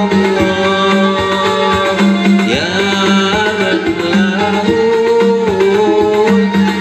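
A man singing karaoke into a handheld microphone over a backing track with hand-drum percussion, both played loud through a pair of Baretone 15-inch active speakers fed by a Zeta Pro Pertamax 6 mixer. The melody is sung with long held notes that slide between pitches.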